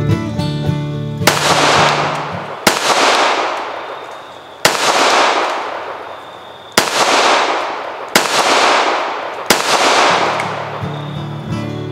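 Six shots from a Remington RM380 .380 ACP pocket pistol, fired one to two seconds apart. Each sharp crack is followed by a long echo dying away.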